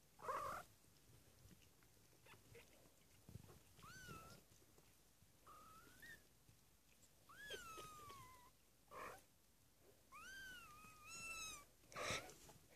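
Three-week-old kittens mewing: several thin, high cries, some rising and some falling, one drawn out for about a second. Short noisy bursts near the start and near the end are the loudest sounds.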